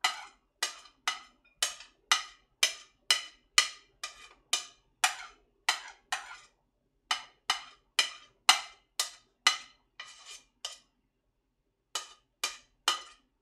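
Utensil tapping against ceramic dishes while chopped vegetables and crab stick are knocked into a bowl: sharp ringing clinks, about two a second, with a pause of about a second near the end.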